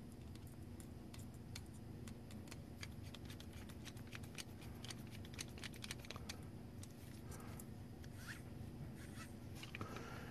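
Small screwdriver driving a tiny screw through a plastic wheel hub into a yellow gear motor's shaft: faint, rapid, irregular clicks and scrapes of the blade in the screw head, thinning out in the last few seconds, over a low steady hum.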